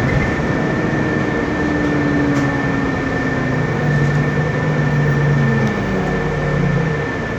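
Otokar Kent LF city bus running, its Cummins ISB diesel engine note rising and falling several times, over a steady high whine and a constant rushing noise, with the air conditioning on.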